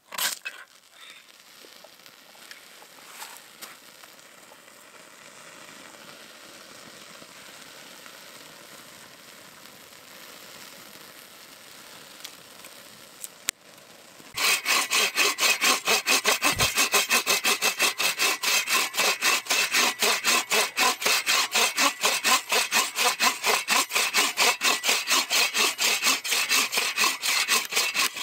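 A hand saw cutting through wood in rapid, even back-and-forth strokes, beginning about halfway through after a faint steady hiss.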